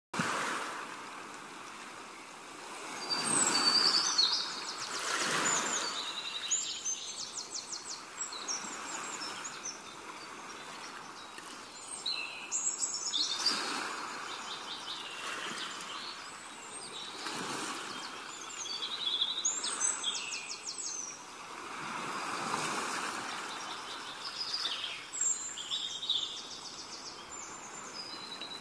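Small birds chirping in quick, high trills that come every few seconds, over a steady outdoor hiss that swells louder several times.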